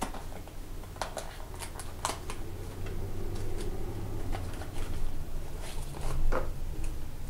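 Small product packaging being handled and opened: a scattering of irregular clicks and crinkles, about a dozen over several seconds.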